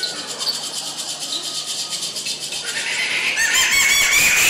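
A rattle shaken in a fast, steady rhythm. About three seconds in, a loud, high, wavering pitched call joins it and becomes the loudest sound.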